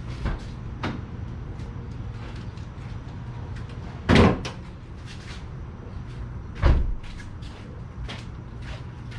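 Car being opened up to pop the hood: a couple of light clicks in the first second, then two heavy thuds about two and a half seconds apart, from the door and the hood latch.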